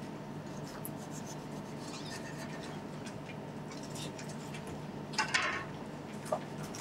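Quiet kitchen handling: a knife cutting a tomato on a cutting board and slices being set down, with a short scrape a little after five seconds in and a light click soon after, over a low steady hum.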